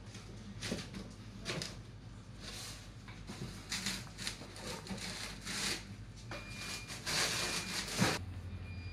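Empty cardboard boxes rustling, scraping and bumping in irregular bursts as a dog noses into them and shoves them across a concrete floor, busiest near the end with a sharper knock as a box tips over.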